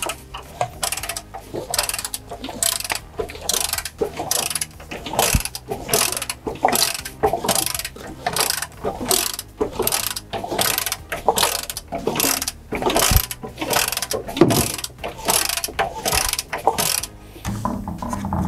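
A torque wrench's ratchet clicking back and forth in a steady run, about three clicks a second, as the 5.7 Hemi's rocker arm stand bolts are gone over again for torque; it stops about a second before the end.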